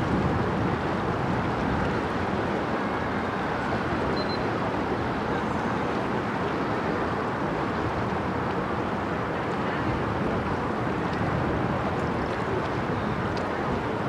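Steady, even noise of wind and river water, with the engine of a passing inland cargo ship mixed in. No separate tones or knocks stand out.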